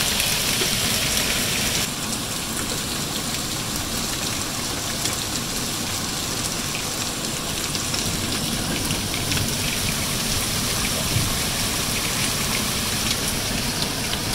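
Heavy rain pouring steadily onto leaves and waterlogged ground, with individual drops ticking close by. About two seconds in, it turns a little softer and duller.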